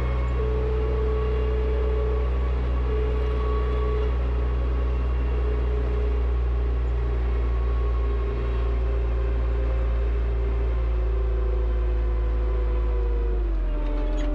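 Front-loader tractor's engine running steadily under load, with a steady mechanical whine over the low drone; the engine note drops and shifts near the end.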